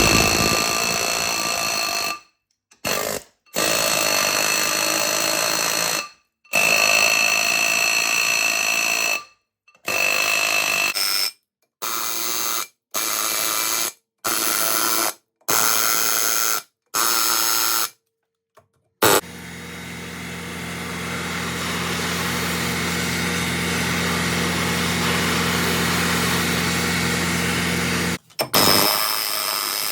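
Pneumatic air hammer hammering on a rust-seized brake rotor in repeated bursts of one to three seconds, with a high metallic ring. About two-thirds of the way in, a steadier, lower machine hum takes over.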